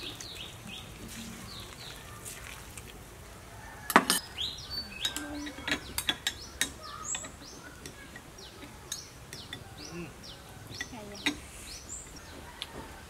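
Spoons clinking against small ceramic bowls, with a sharp clink about four seconds in and a cluster of lighter clinks over the next few seconds. Under it, a bird repeats a short falling chirp many times.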